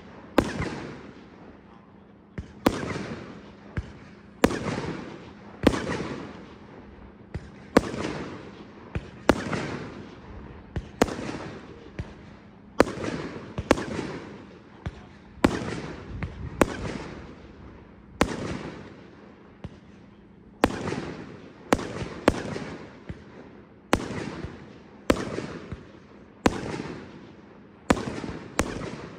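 A 300-shot compound firework cake firing, with its shots bursting one after another about every one to two seconds. Each burst is a sharp bang that fades into a brief crackling tail.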